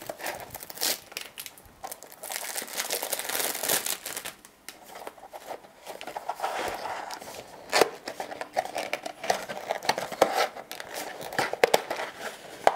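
Crinkling and tearing of a cellophane overwrap being peeled off a cardboard tea box. In the second half the box's cardboard flaps are pulled open, with a few sharp snaps.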